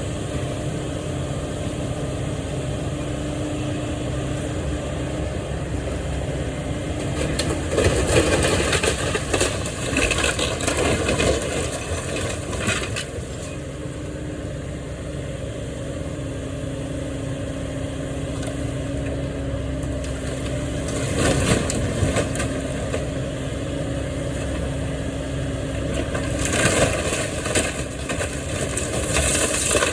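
Demolition work: a heavy machine's engine runs steadily while walls are broken down, with bouts of crunching and cracking debris about a quarter of the way in, again past the middle, and near the end.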